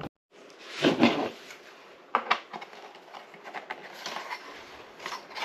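Small plastic pieces being handled: a rustle about a second in, then scattered light clicks and taps of plastic against plastic.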